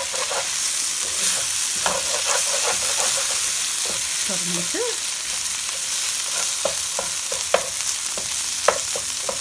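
Green tomato and coconut thoran frying in a pan with a steady sizzle, while a wooden spatula stirs it, scraping and tapping against the pan now and then.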